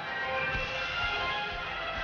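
Recorded program music for an ice dance free dance, with sustained melodic notes over a steady low beat about twice a second.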